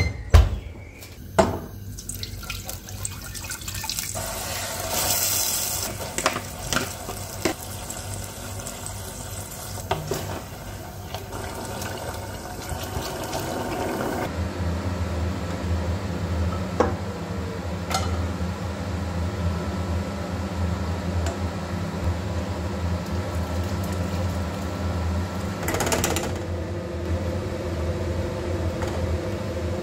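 Kitchen cooking sounds: a clunk as the oven door is shut, then a pot of chopped vegetables sizzling while a wooden spoon stirs and scrapes it. From about halfway, a steady low hum sits under the sound of a whisk working through a pot of broth as it is thickened into gravy.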